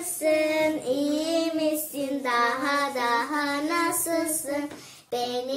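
A child singing a song with long held, gliding notes and little or no accompaniment; the voice fades briefly about five seconds in, then the singing starts again.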